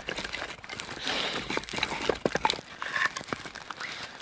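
Split firewood pieces knocking and clattering as they are picked from a pile and stacked onto a small kindling fire, with irregular clicks and rustling.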